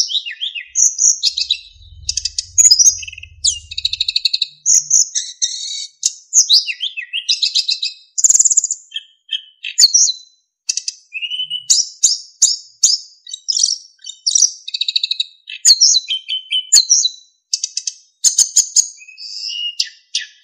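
Sikatan emas (a small yellow, black and white flycatcher) singing continuously in rapid, varied phrases. The song mixes high chirps and trills with clear, flute-like whistled notes.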